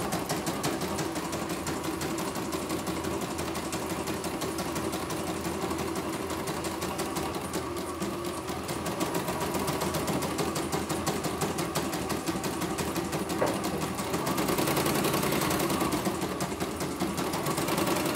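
CNY computerised embroidery machine stitching, its needle bar, with a newly replaced bracket, running in a rapid, even run of needle strokes, a little louder for a couple of seconds near the end.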